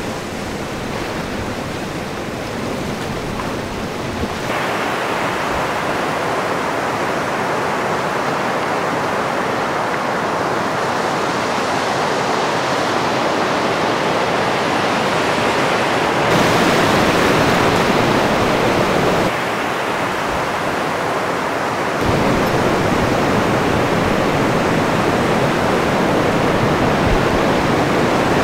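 Recorded Pacific Ocean surf washing over rocky shore, a steady rush of water. The sound changes suddenly in loudness and tone several times as one wave recording cuts to another.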